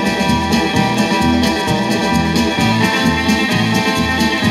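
Instrumental rock-and-roll playing from a 45 rpm vinyl single on a turntable, with held lead tones over a steady, repeating bass beat.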